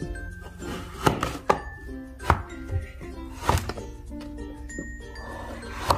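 Background music, with a plastic scraper slicing through kinetic sand: about five sharp taps, each cut ending against the table.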